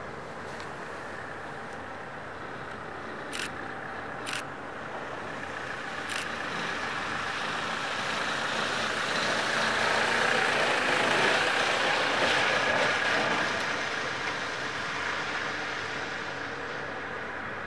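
Heavy diesel engine running, swelling louder over several seconds and then easing off, with three sharp clicks in the first half.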